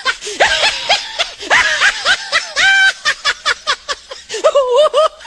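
A person laughing hard in rapid, high-pitched bursts.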